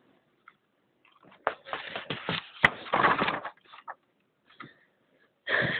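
Paper rustling and scraping as a paperback diary is handled and turned over, with one sharp click partway through.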